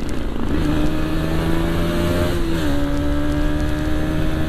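KTM Duke 200's single-cylinder engine pulling under acceleration at highway speed, its pitch rising slowly, dropping on an upshift about halfway through, then climbing again.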